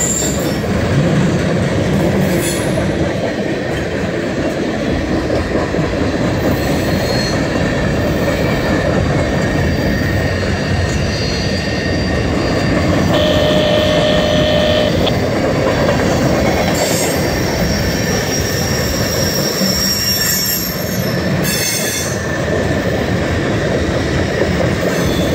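Freight cars of a mixed manifest train rolling past close by: a steady rumble of steel wheels on rail, with brief wheel squeals. One clear squeal comes about halfway through and lasts a couple of seconds.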